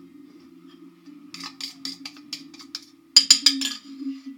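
A run of light, quick clicks, then a louder cluster of sharper clicks about three seconds in, over a steady low hum.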